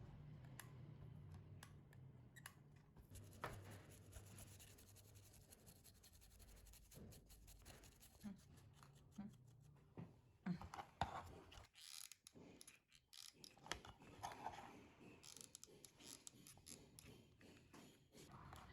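Faint, scattered clicks, taps and scraping from small tools and parts being handled at close range.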